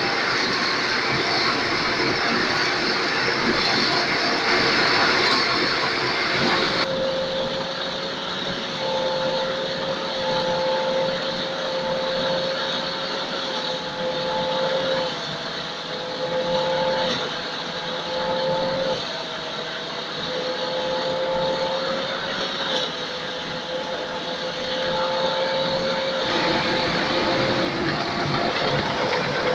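Rice threshing machine running under load as rice sheaves are fed into its drum: a loud, steady mechanical noise. From about a quarter of the way in, a steady whine sits over it, wavering slightly in pitch.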